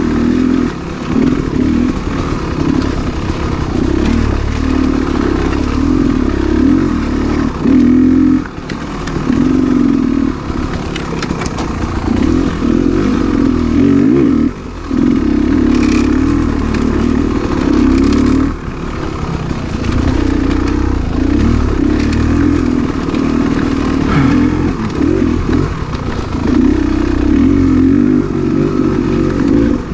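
2019 Beta 300RR Race Edition's two-stroke engine being ridden on trail, the throttle opening and closing constantly, with brief throttle-offs a few times.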